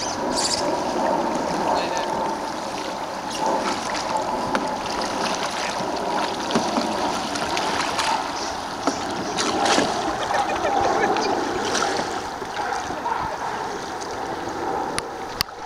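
Canoe paddles dipping and splashing in river water as open canoes are paddled along, with a steady wash of moving water and a few short sharp clicks.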